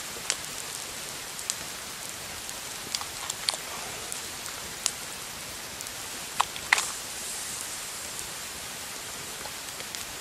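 Campfire crackling under a pot of boiling water, over a steady hiss, with scattered sharp snaps and small plops as potato pieces drop into the pot.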